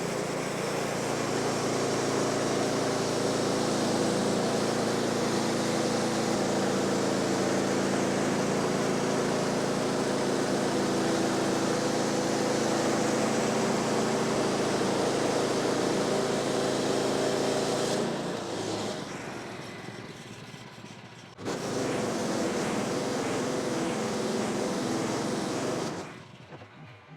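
Gas-engine portable bandsaw sawmill running steadily as it saws through a log. The sound drops away about 18 seconds in, comes back abruptly a few seconds later, and falls off again near the end.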